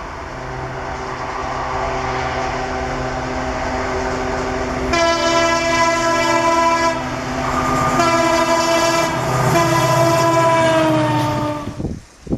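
WDM-3D diesel locomotive, its ALCO 251 V16 engine running, approaching and growing louder; about five seconds in its horn sounds in a long blast, breaks briefly, then a second long blast that sags slightly in pitch and cuts off abruptly near the end.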